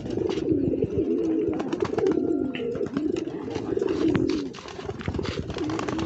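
Several domestic racing pigeons cooing continuously, their calls overlapping, with scattered short clicks and taps.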